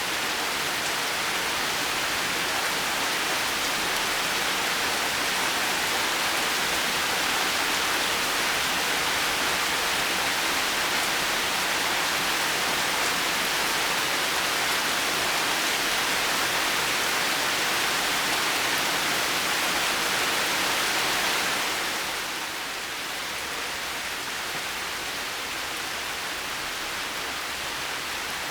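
Heavy rain falling in a steady, even hiss; about three quarters of the way through it drops a little quieter and carries on.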